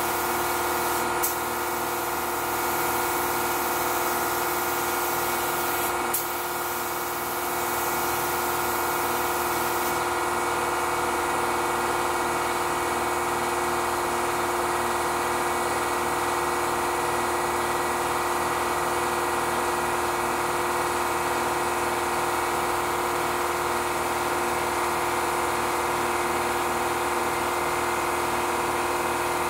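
29-gallon air compressor running steadily with a constant motor hum. Over it, a hiss of air from the LVLP spray gun, with a couple of sharp clicks early on, drops away about ten seconds in.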